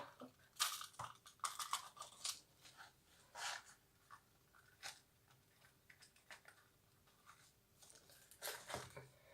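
Faint, intermittent crinkling and rustling of packaging being handled, a series of short crackles with quiet gaps between them.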